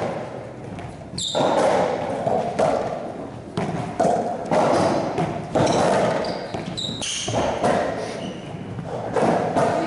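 Racquetball thudding against the floor and walls of an enclosed court: a series of sharp, irregular hits, each ringing on in the hall, with short high squeaks of court shoes on the floor.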